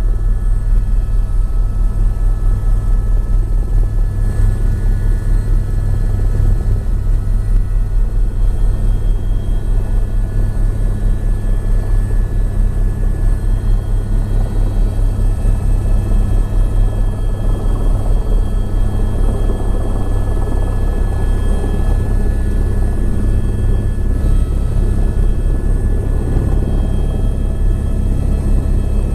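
Helicopter running steadily, with a fast, even low beat of the rotor blades and several steady whining tones above it.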